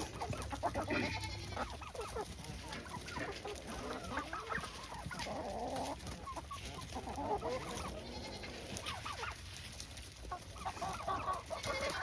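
A flock of hens clucking and chattering over one another, with short repeated calls throughout.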